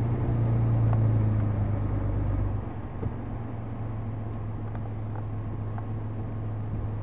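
Vehicle engine running steadily while driving across sand, a low drone that drops a little in level about two and a half seconds in.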